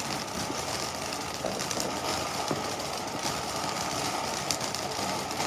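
Gold Dust ground fountain firework spraying sparks: a steady hiss laced with rapid fine crackling.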